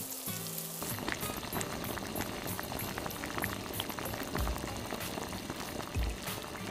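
Water bubbling at a rolling boil in a frying pan, a dense crackle of bursting bubbles, as strips of fish cake blanch in it. Light background music underneath; in the first second, tap water running into a bowl.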